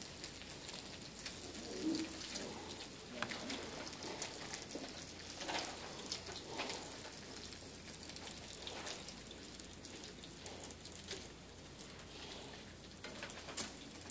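Meat sizzling on an open electric contact grill, a steady crackle with many small pops throughout.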